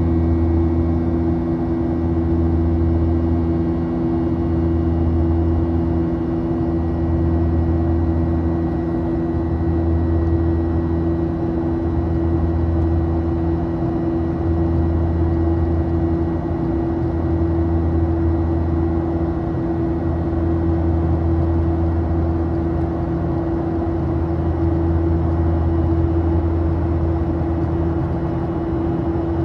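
Cabin noise of a Boeing 737-800 in its climb after takeoff, its CFM56-7B turbofan engines heard from inside: a steady drone with a couple of held mid tones and a low hum that swells and fades every couple of seconds.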